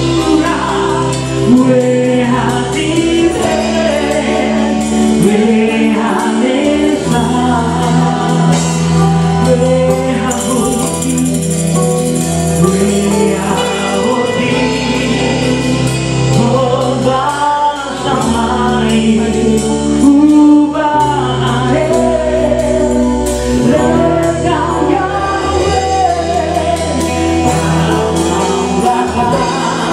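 Worship music with a male lead singer and voices singing a Hebrew song over a band with electric guitar, with tambourines shaken along to the beat.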